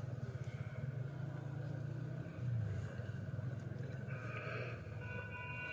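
Faint, steady low rumble or hum with no speech, with a few faint thin tones near the end.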